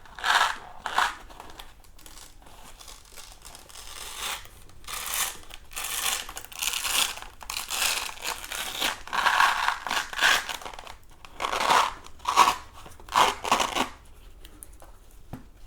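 Industrial-strength hook-and-loop (Velcro) fastening being pulled apart in a series of short rasping tears as a side pad is peeled off an electric unicycle. The tearing stops about a second before the end.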